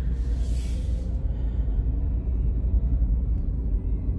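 Steady low rumble of a car's road and engine noise heard inside the cabin while driving, with a short hiss about half a second in.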